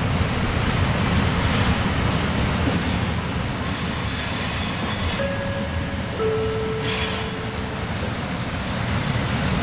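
Freight train of open-top wagons passing close by, its wheels rumbling steadily over the rails. Several bursts of high hiss come and go, and two short squealing tones sound about halfway through.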